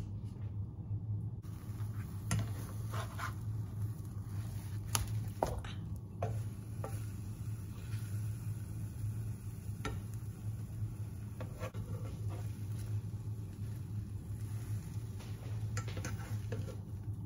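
Egg sizzling softly in a nonstick frying pan while a plastic spatula scrapes and taps against the pan as the omelette is folded, about a dozen short scrapes and clicks scattered through. A steady low hum runs underneath.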